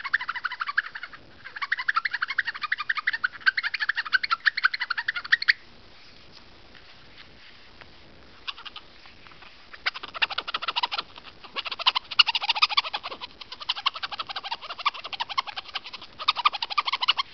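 Finger scratching the glossy back of a Samsung mobile phone, making rapid, chattering trains of clicks. These come in bouts of one to four seconds, with a pause of about four seconds in the middle.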